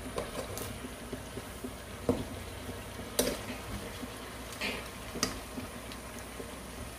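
Metal tongs clicking and scraping against a pan and each other as chicken pieces are turned, several sharp clicks over a steady low hiss.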